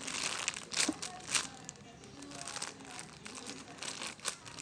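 Plastic crinkling and rustling in irregular crackles, from squishy toys and their plastic wrapping being handled; the loudest crackles come about one and one and a half seconds in.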